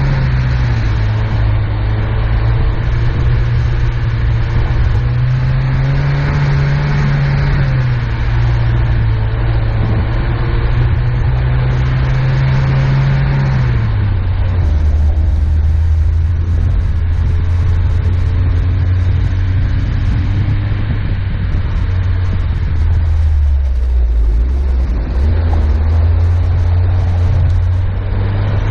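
Small 4x4 off-roader's engine running at low, steady revs while it drives slowly through snow, heard close up from over the hood. The engine note drops about halfway through, dips lower again about four seconds from the end, then climbs back up.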